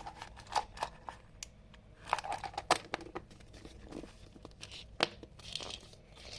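Handling noise: plastic packaging crinkling, with scattered small clicks and taps.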